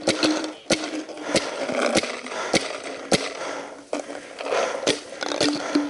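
Paintball marker firing a steady string of single shots, about nine sharp pops spaced roughly half a second to a second apart, laying down fire to deter an opponent in the grass ahead.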